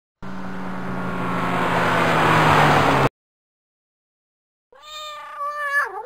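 Cartoon car engine sound effect growing louder for about three seconds, then cutting off abruptly. After a pause of about a second and a half, a cat meows once, drawn out and falling in pitch at the end.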